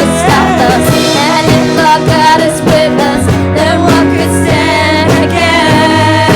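Worship band music with singing: a full band plays steadily while a voice carries the melody.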